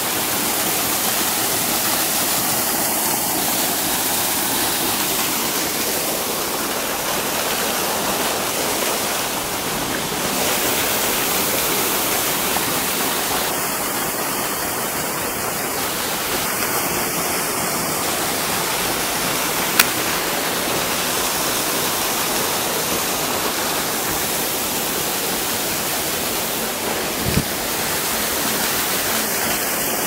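Waterfall pouring over rocks: a steady rush of falling water, with one sharp click about twenty seconds in and a short low knock near the end.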